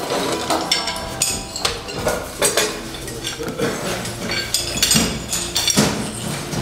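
Metal fire hose couplings and fittings clanking and clinking repeatedly as fire hoses are joined and handled on a hard floor, with ringing metallic knocks.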